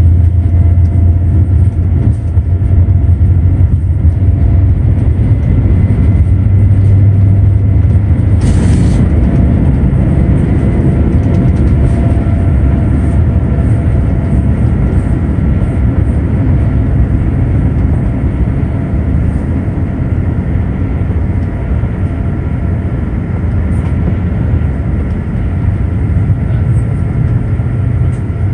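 Cabin noise of a Boeing 787-9 on its takeoff roll and climb-out: a loud, steady low rumble from the engines at takeoff thrust and the wheels on the runway, easing somewhat after lift-off. A brief sharper noise about eight seconds in.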